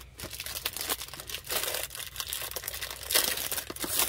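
Clear plastic wrap crinkling as hands rub it against a boxed kit and pull at its loose edge to peel it off. The crinkling comes and goes and is loudest about three seconds in.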